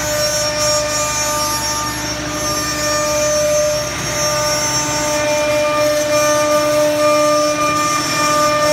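A large CNC router's 6 kW air-cooled spindle running at speed as it cuts a wooden board: a steady whine of several held pitches over the hiss of cutting.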